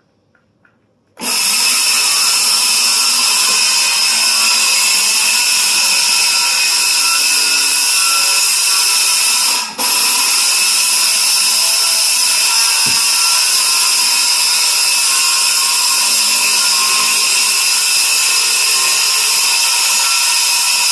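Hart 20-volt cordless circular saw starting about a second in and running steadily with a high whine while cutting plywood. Its sound drops for a moment near the middle and stops right at the end.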